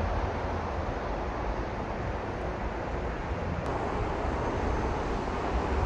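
Steady outdoor noise with a choppy low rumble, even in level throughout.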